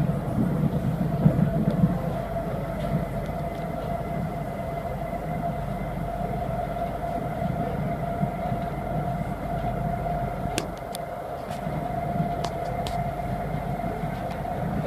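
SMRT C751B metro train running between stations, heard from inside a car: a steady rumble of the wheels and running gear with a steady mid-pitched hum over it. A few sharp clicks come about two-thirds of the way through.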